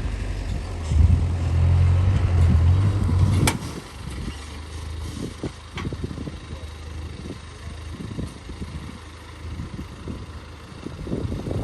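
A vehicle engine running with a loud, low drone that drops off sharply after a click about three and a half seconds in, then continues more quietly with scattered knocks.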